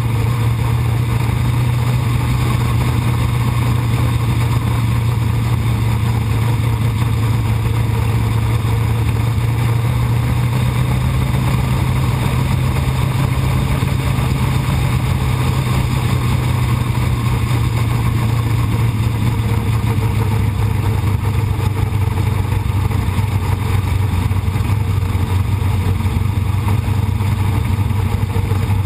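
Sprint car's V8 engine running at a fairly steady pitch, heard from inside the car's cockpit.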